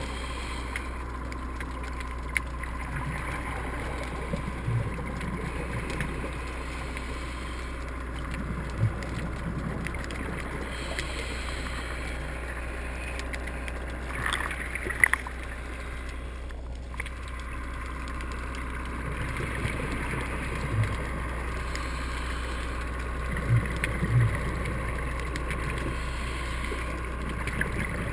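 Muffled underwater noise picked up by a camera below the surface: a steady low rumble and hiss, with a few short low thumps scattered through.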